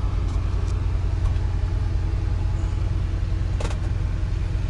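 Freightliner M2 112's diesel engine idling, a steady low drone heard inside the cab. A single short click comes about three and a half seconds in.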